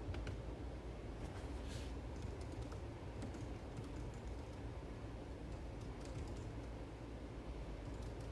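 Scattered light clicks and taps, coming in irregular clusters over a steady low hum.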